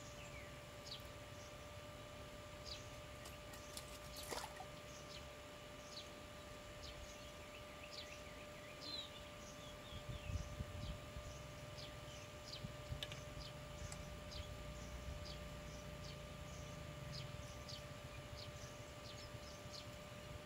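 Faint birds chirping: many short, high, downward chirps scattered throughout, over a low rumble of wind and a faint steady whine, with one sharp click about four seconds in.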